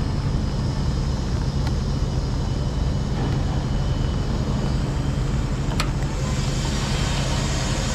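Steady low machine hum under a hiss, with two faint clicks.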